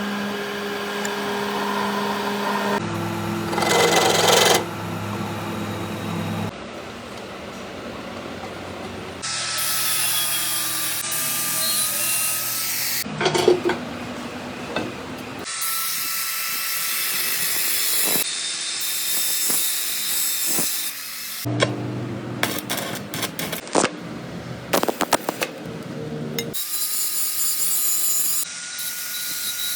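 Workshop power tools working metal, heard in a series of short cuts: steady motor hums and high whines over a rasping cutting noise. A run of sharp taps or clicks comes about three-quarters of the way through.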